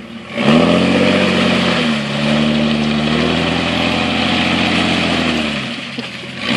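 Jeep Wrangler's engine revving hard as it drives through mud. The revs jump up suddenly about half a second in, dip briefly near two seconds, hold steady, then ease off near the end.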